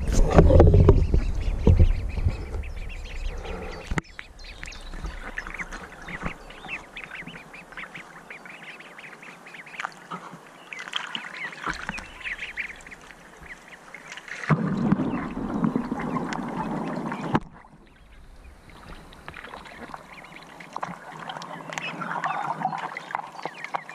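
Ducks quacking over water splashing and sloshing close to the microphone. The water noise is loudest in the first couple of seconds and again for a few seconds about fifteen seconds in.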